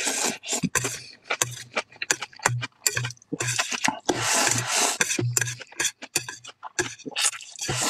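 Close-miked noodle eating: wet chewing and lip-smacking clicks, with a long slurp of noodles about four seconds in.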